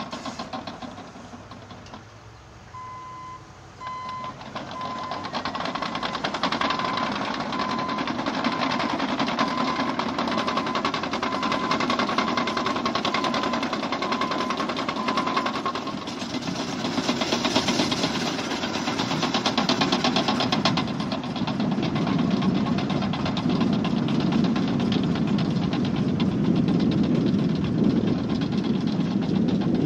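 Caterpillar D6N LGP crawler dozer's diesel engine running with dense track clatter, while its reverse alarm beeps at an even pace for about twelve seconds, the sign that it is backing up. The beeping stops about halfway through, and the engine grows louder and heavier toward the end.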